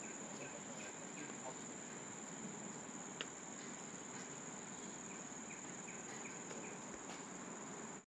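Steady, high-pitched drone of an insect chorus, unbroken throughout, with a faint click about three seconds in.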